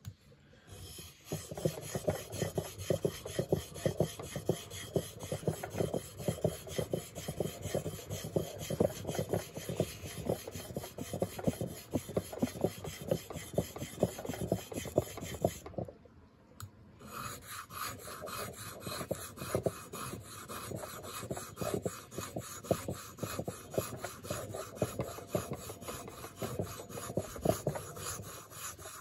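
Leatherman PST multitool blade being sharpened on a sharpening stone: rapid, rough scraping strokes of steel across the abrasive, with a short break a little past halfway before the strokes resume.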